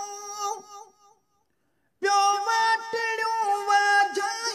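Sindhi song: a singing voice holds a long note that fades out, then a gap of about a second of dead silence. The singer comes back in on another long held note, bending in pitch toward the end.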